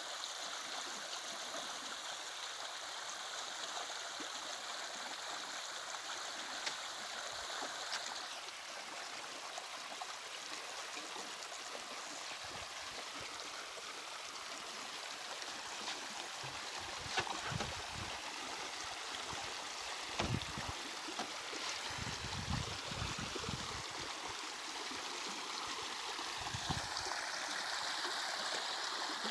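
Running water of a stream or small waterfall, a steady rushing flow with some gurgling, and a few brief low thumps in the second half.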